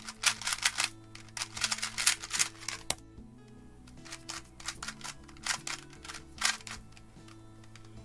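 A GAN 251M Leap magnetic 2x2 speedcube being turned quickly, its plastic layers clacking in two fast flurries of turns. Soft background music plays underneath.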